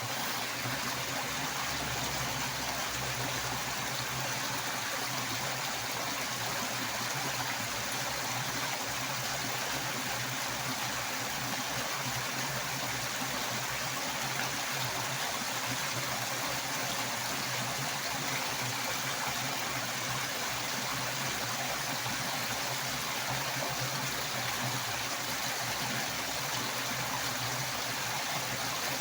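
Strongly rushing water, a steady, unbroken flow.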